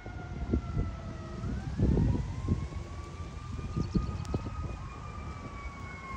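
Several emergency sirens wailing at once, their tones slowly rising and falling and crossing over one another. Under them is a louder low rumble with irregular thumps, heaviest about two seconds in.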